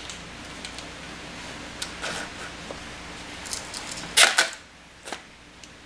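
Handling noises as a steel anode is taken out of a bucket of electrolysis solution: small clicks and rustles from gloved hands at the charger clamp, then a brief louder noise about four seconds in as the anode comes up out of the water. A faint steady hum stops at about the same time.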